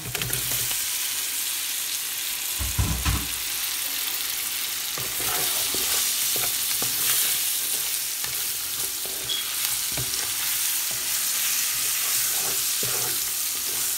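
Onion and spice masala sizzling in hot oil in a pan as pieces of raw yam are tipped in, with a low thud about three seconds in. From about five seconds on, a wooden spatula scrapes and stirs the yam through the frying masala.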